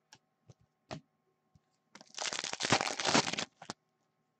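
A stack of hockey trading cards handled in the hand: a few light clicks, then about a second and a half of dense rustling as the cards are slid and shuffled against each other.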